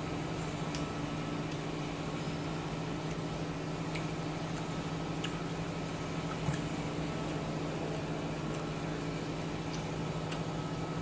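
A steady low hum with a few fixed tones, like an appliance or fan running, with faint scattered clicks of chopsticks against a ceramic bowl; one slightly louder knock about six and a half seconds in.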